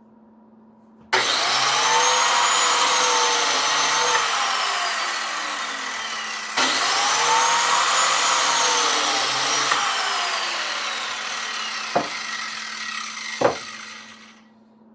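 An electric woodworking power tool cutting wood: the motor's whine starts abruptly, sags and recovers as it bites, starts afresh about five and a half seconds in, then fades away near the end, with two sharp knocks in the last few seconds.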